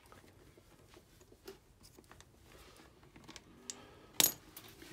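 Faint metallic clicks and rattles as a motorcycle drive chain and a hand chain breaker are handled, with one sharp clack about four seconds in.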